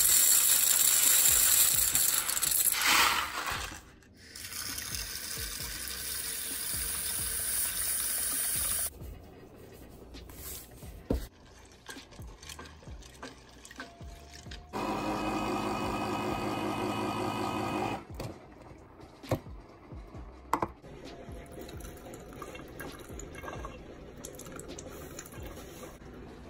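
Dry elbow macaroni poured from the box into a stainless steel saucepan, the hard pasta rattling against the metal for about four seconds. A steady rush follows for several seconds, then quieter kitchen sounds.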